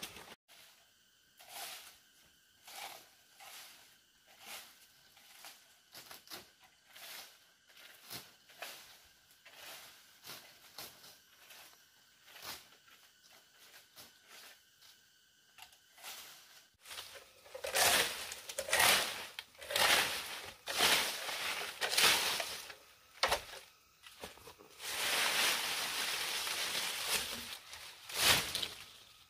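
Dry leaves and branches rustling and crackling as they are handled, in a run of louder bursts over the second half, with faint scattered knocks and rustles before.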